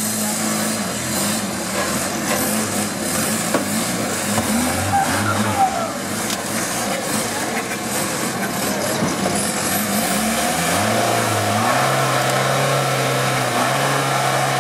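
A 4x4 off-road trial buggy's engine revving unevenly as it crawls up over boulders, then held at higher, steadier revs for the last few seconds.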